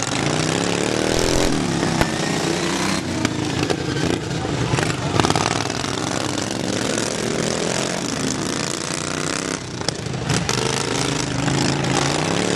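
Several racing lawn mower engines running hard at once, their pitch rising and falling over and over as the mowers speed up and slow down.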